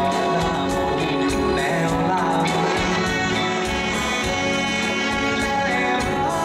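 A male singer sings a Thai song live over a backing band.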